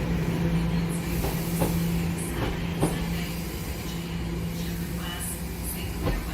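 TTC subway train running past, a steady low hum that fades after about three seconds, with scattered clicks and knocks as it moves away.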